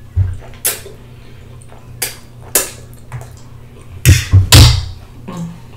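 Close-miked mouth sounds of eating spaghetti and fried fish: wet slurps, chewing and lip smacks at irregular intervals. A louder cluster of sharp smacks comes about four seconds in.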